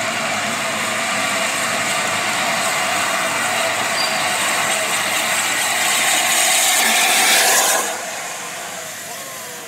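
LNER A4 class Pacific steam locomotive 60007 Sir Nigel Gresley moving off slowly with a loud, steady hiss of escaping steam. The hiss grows louder, then drops away abruptly about eight seconds in.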